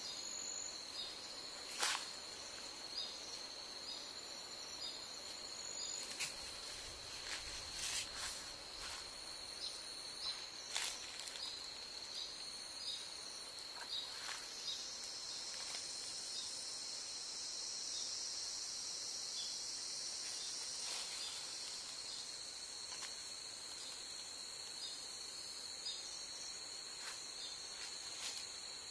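A steady high-pitched insect drone, with scattered faint clicks and rustles.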